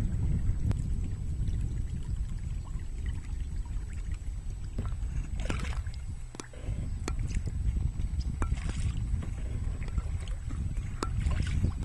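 Kayak paddle strokes in calm river water: brief splashes and drips a few times, over a steady low rumble of wind on the microphone.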